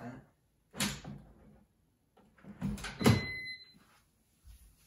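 Knocks and clatter from handling a GourmetMaxx 12-litre air fryer oven, one about a second in and a louder cluster about three seconds in, followed by a short electronic beep from the appliance as its display switches off.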